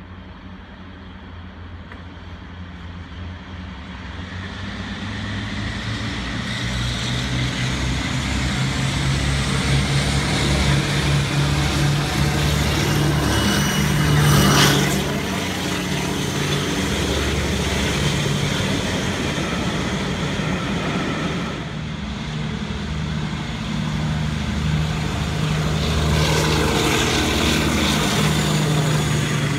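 Class 52 'Western' diesel-hydraulic locomotive with twin Maybach engines, working hard as it approaches at speed. It grows steadily louder and passes close about fourteen seconds in. After that the coaches rumble past on the rails, with the engine note still heard.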